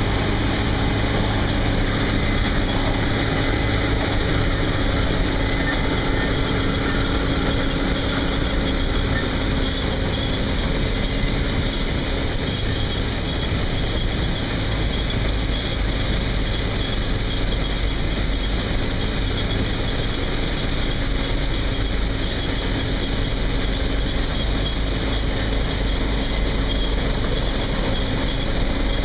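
Case IH Axial-Flow 7120 combine running steadily while harvesting soybeans: a constant machine hum and hiss with no change in pace.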